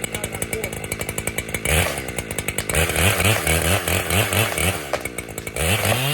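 Chainsaw idling with a fast ticking beat, then revved up and down several times from about two seconds in, as it cuts through the hinge wood to free a leaning tree from its stump.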